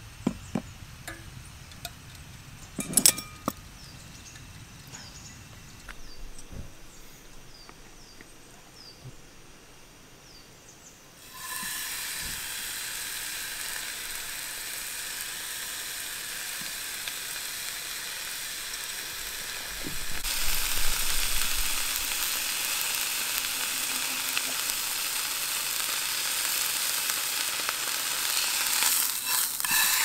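A few sharp clinks and knocks, then food frying in a hot pan: a steady sizzle that starts suddenly about a third of the way in and grows louder about two-thirds of the way in, as the heat is high.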